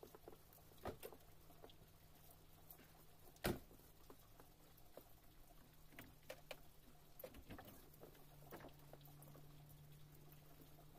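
Near silence: faint scattered ticks and taps over a low steady hum, with one sharper click about three and a half seconds in.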